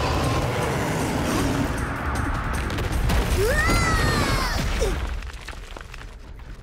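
Cartoon battle sound effects: a loud rumbling blast with crashing, and a rising then falling screech-like cry of a monster in the middle, all dying down near the end.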